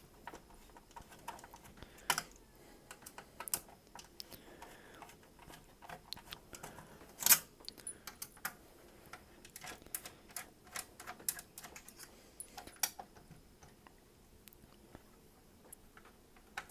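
Scattered small clicks and taps of hand screwdriver work, with T8 and T10 Torx drivers, taking the screws out of an Xbox 360 Slim's case, with one louder click about seven seconds in.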